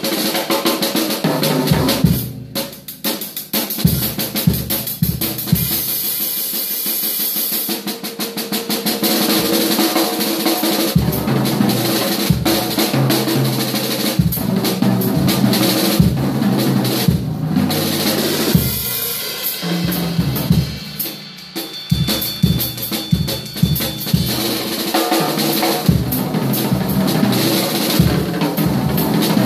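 Acoustic drum kit played in a fast solo: rapid snare and tom strokes and rolls over bass drum, with cymbal crashes. It eases off briefly about two seconds in and again about twenty-one seconds in.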